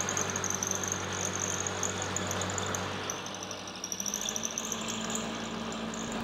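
Benchtop mill-drill running, its end mill cutting a metal bar held in the vise as the table is cranked along by hand: a steady motor hum with a wavering high whine. About four seconds in the machine's hum changes pitch.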